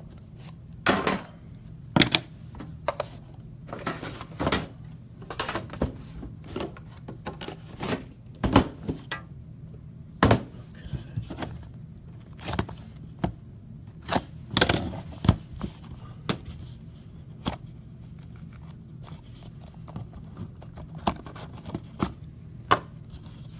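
Irregular knocks, taps and thunks of objects being handled and set down on a tabletop, over a steady low hum.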